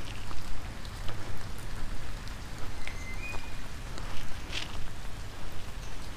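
Light rain falling outdoors onto leaves and water, an even hiss with scattered drop ticks, over a low, uneven rumble. A short high note sounds about three seconds in.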